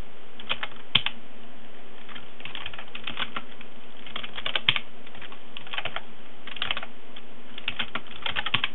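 Computer keyboard being typed on: short runs of key clicks with pauses between them, over a steady background hiss and faint hum.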